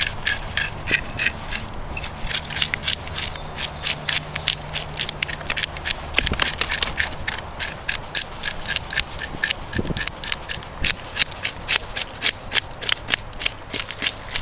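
Scales being scraped off a sheepshead: quick, uneven scraping strokes, a few a second, with the scales crackling and clicking as they break loose.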